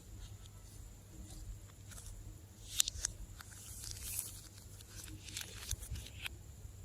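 Slime being handled, giving scattered sticky clicks and crackles, the sharpest about three seconds in, over a steady low hum.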